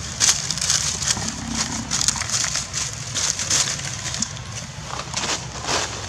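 Dry fallen leaves crackling and rustling in quick, irregular crunches as a macaque moves through them, over a low steady rumble.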